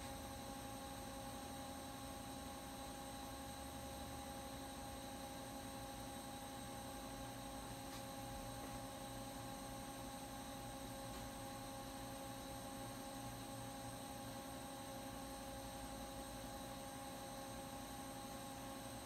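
Steady electrical hum from lab electronics, with faint unchanging whines above it over a low hiss.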